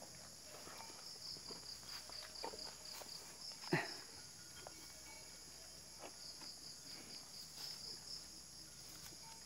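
Faint insect chorus: a rapid, evenly pulsing high chirp over a steady higher hiss of insects. A single short sharp knock a little under four seconds in.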